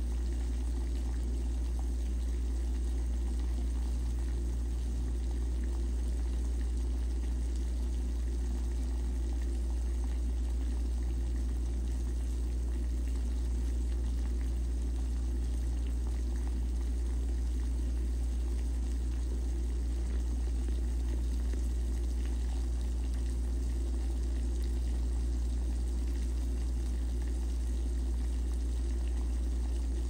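Water at a rolling boil in a pot on a gas stove: steady bubbling over a continuous low rumble.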